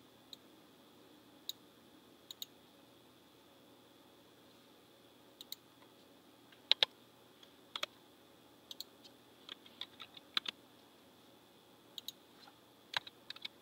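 Faint computer keyboard keystrokes and mouse clicks, scattered sharp clicks that come in pairs and short runs, few at first and busier from about five seconds in, over quiet room tone.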